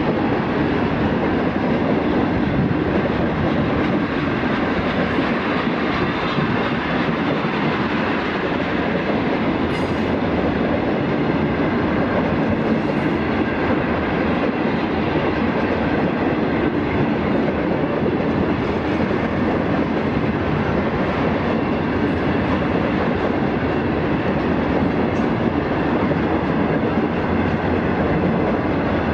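Freight train of loaded coal hopper cars rolling past close by: the steady running noise of steel wheels on the rails and the cars' rattle, even throughout.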